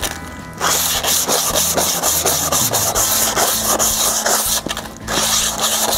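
Emery cloth rubbed rapidly back and forth around the inside of a brake drum, a scratchy rasping made of quick repeated strokes that stops briefly near the start and again about two-thirds of the way in. The cloth is cleaning off a small lip and old deposits worn into the drum's braking surface.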